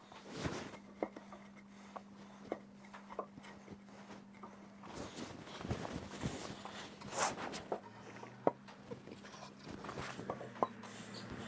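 Scattered light knocks and clicks over a faint steady hum, growing busier about halfway through.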